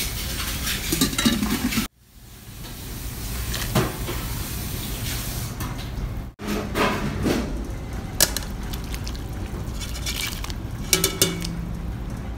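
Pot of soup bubbling on the stove with a steady hiss, and a few short metallic clinks of the pot lid or utensils in the second half.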